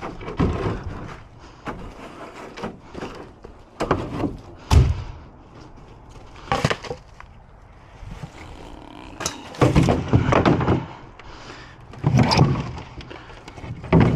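Scattered knocks and thuds of junk and wood being handled and moved, with a busier stretch of bumping and rustling in the second half.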